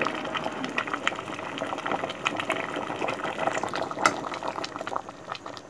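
Pot of fresh bamboo-shoot curry boiling: a steady bubbling with many small irregular pops, easing off a little near the end.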